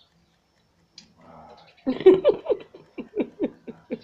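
A dog whining in a quick run of short yelps, each falling in pitch, starting about two seconds in.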